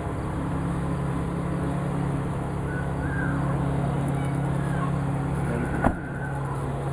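A steady low mechanical hum, with a few faint short chirps and one sharp click about six seconds in.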